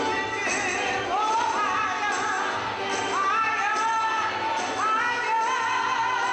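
Live gospel music in a church: singing over the band, with phrases that rise and are held, and sharp high strokes every second or two.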